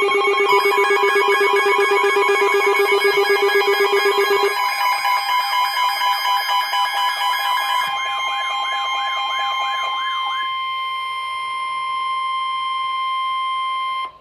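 Layered electronic emergency alert tones: a fast-pulsing ringing alarm over several steady tones, then a tone wailing up and down about twice a second, leaving a steady high tone that cuts off suddenly near the end.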